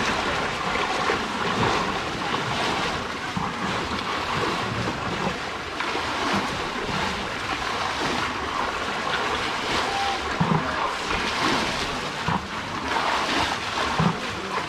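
Floodwater rushing across a road: a steady noise of flowing water, with a few dull low thumps in the last few seconds.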